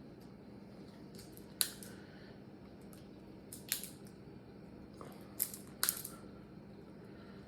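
A handful of short, sharp crackles and snaps of packaging being cut and pulled apart with a dull knife, spaced a second or two apart over a low steady hum.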